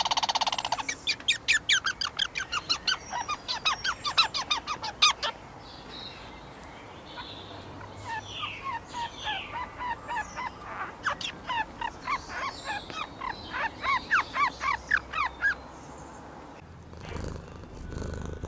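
Eastern gray squirrel calling in fast runs of short, sharp notes, about six a second. One run comes in the first few seconds, then after a pause a longer run follows.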